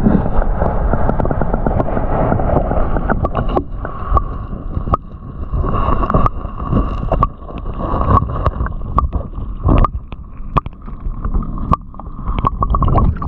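Muffled churning and gurgling river water heard while diving, with many sharp knocks and clicks throughout. A steady whine joins in about four seconds in.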